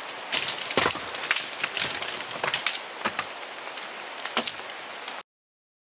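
Steady rain falling, with irregular clicks and knocks as tent pole sections are handled and fitted together. The sound cuts out completely about five seconds in.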